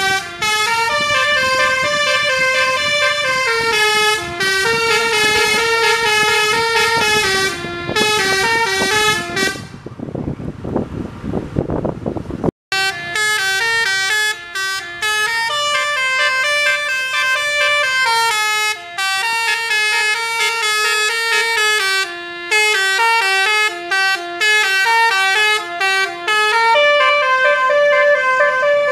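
A coach bus's multi-tone 'telolet' horn playing a stepping melody of several notes over and over, loud and continuous. About ten seconds in, the tune breaks off for a few seconds and engine and road noise take over, then the horn melody starts again after a sudden cut and runs on.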